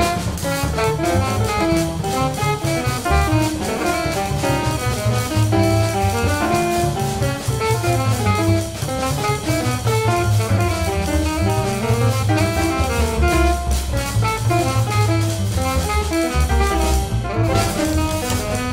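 A free jazz quartet of alto saxophone, piano, double bass and drum kit playing, with many short, quick-moving notes over a low bass line and continuous drumming.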